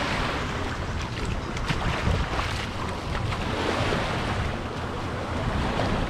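Small sea waves washing onto the beach, the surf swelling and easing every couple of seconds, with wind rumbling on the microphone.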